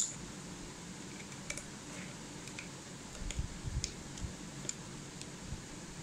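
Small clicks and light taps of hands handling a screw and the plastic and metal parts of a table-fan motor while fitting them. A sharp click comes right at the start, and a few low knocks come a little past halfway.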